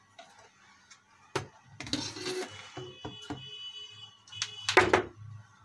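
A computer motherboard being handled and turned over on a workbench: clicks and knocks, a scraping rustle about two seconds in, and a louder clatter near the end as it is set down, over a steady low hum.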